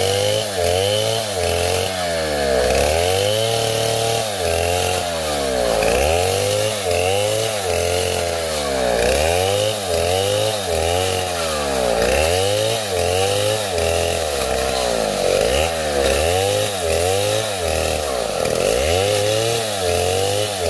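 Chainsaw running hard and cutting, its pitch rising and falling about once a second as the engine is revved and loaded.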